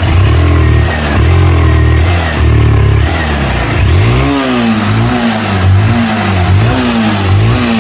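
Honda CG 160 Fan's single-cylinder four-stroke engine revved by hand, held up for the first few seconds and then blipped in quick rises and falls about once a second. With a battery charger boosting the supply it revs without stumbling, which the mechanic takes as the sign of a weak fuel pump insert rather than a bad stator.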